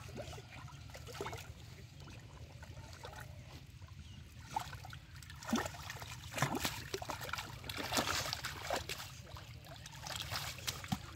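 Hands sloshing and splashing in shallow muddy water, with a run of short, sharp splashes from about four seconds in, over a steady low rumble.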